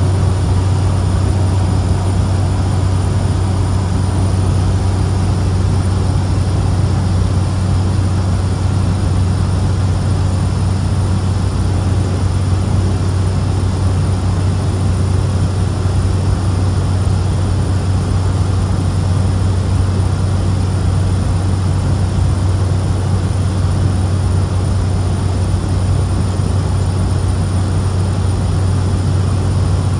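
Cabin noise of a Cessna 208 Caravan in flight: its single PT6A turboprop engine and propeller give a loud, steady drone with a strong low hum, over an even rush of noise that does not change.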